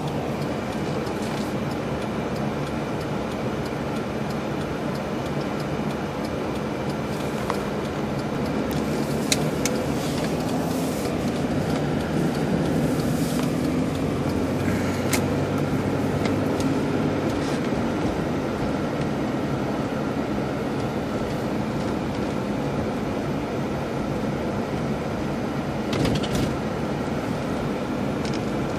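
Steady engine and tyre road noise heard inside a moving car, swelling a little in the middle, with a few faint clicks and a short louder rustle near the end.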